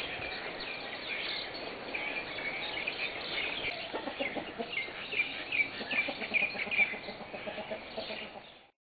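Chickens clucking and calling, with many short calls overlapping, busiest in the second half. The sound cuts off suddenly just before the end.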